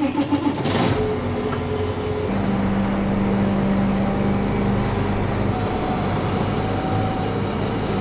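John Deere tractor's diesel engine running, heard from inside the cab. It is a steady hum whose pitch steps up about two seconds in and shifts again later.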